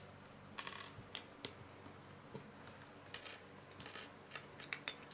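Small plastic Lego pieces clicking and tapping against each other and a wooden tabletop as they are picked up and pressed together: faint, irregular clicks.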